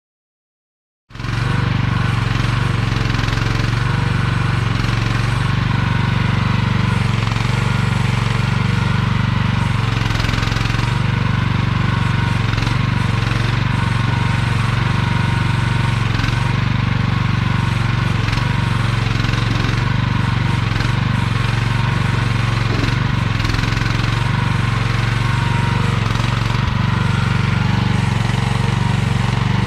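AGT QH12R mini excavator's engine running steadily and loudly, starting abruptly about a second in.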